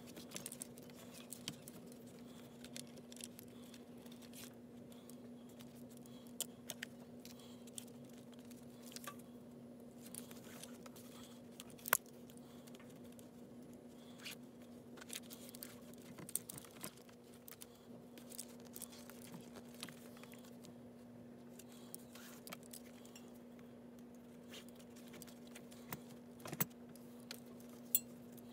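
Faint handling sounds of paracord being laced through the metal grommets of a canvas cheek rest on a wooden rifle stock: scattered light clicks, taps and rustles over a steady low hum.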